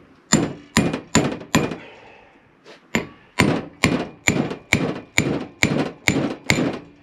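A hammer striking a bearing driver to tap a new grease seal into a front wheel hub. It lands four quick blows, pauses, then nine steady blows about two a second, each with a short metallic ring.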